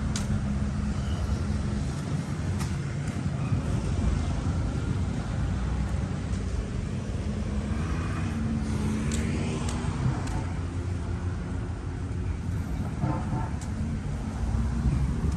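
Road traffic: motor vehicle engines running steadily, with a vehicle passing about halfway through.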